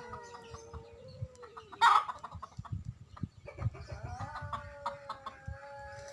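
Domestic cat in heat yowling in long, drawn-out calls. A short, sharp, loud sound comes about two seconds in.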